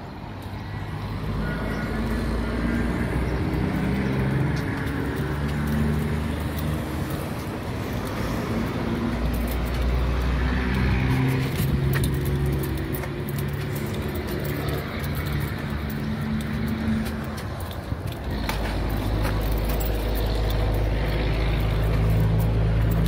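Steady low motor rumble with a faint hum that shifts pitch now and then, and wind rumbling on the microphone, heavier near the end.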